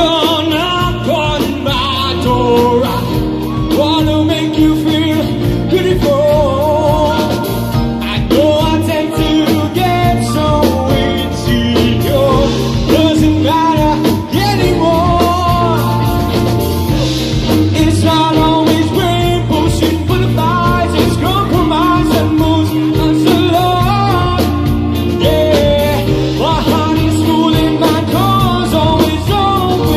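Live rock band performing: a man's voice singing into a microphone over electric guitar and a drum kit, amplified through the house PA.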